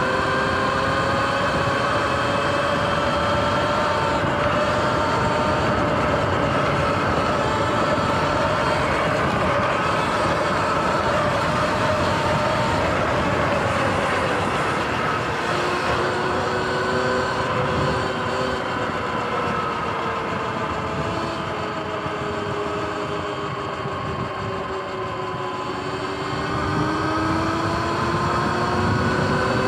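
Sur-Ron X electric dirt bike under way: the whine of its electric motor and drivetrain, its pitch drifting slowly up and down with road speed, over a steady rushing noise. It eases off a little in the second half and climbs again near the end.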